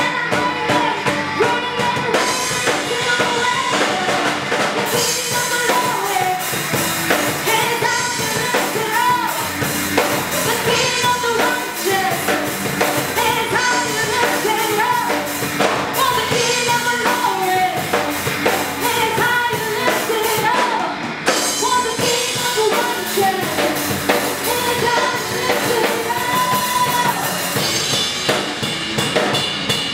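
Live band music: several women singing together into microphones over a drum kit, with the drums coming forward near the end.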